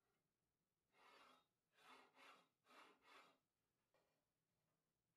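Near silence: room tone with five faint, short puffs of hiss, closely spaced, in the middle.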